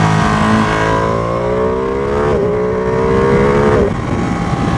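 Ducati Panigale V2's twin-cylinder engine running hard, its pitch falling, then catching and climbing again about halfway through before cutting off abruptly near the end. Wind noise rushes over the microphone throughout.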